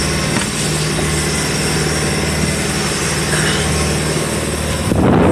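Motorboat engine running steadily under way, with hull and water rush. Near the end, wind buffets the microphone as it is moved out from behind the windshield.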